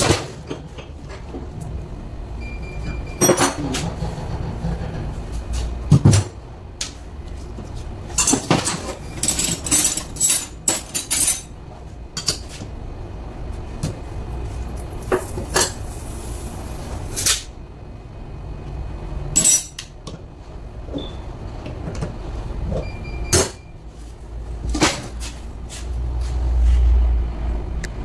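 Irregular metallic clinks and knocks as spanners and a truck AC compressor with its parts are picked up and set down on a workbench, over a steady low hum that swells near the end.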